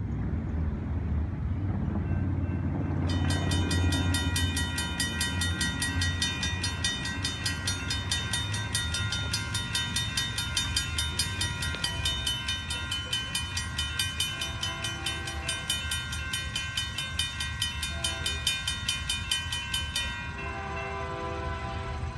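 Railroad crossing bell ringing rapidly, starting a few seconds in and stopping about two seconds before the end once the gates are down, after a low rumble at the start. A Canadian Pacific freight locomotive's horn sounds in the distance in several separate blasts as the train approaches, loudest and longest near the end.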